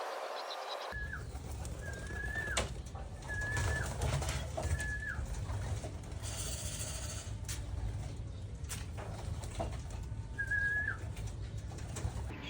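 Racing pigeons calling at the loft: five short, high calls, each held level and then dropping at the end, four close together in the first few seconds and one more near the end, over a steady low rumble.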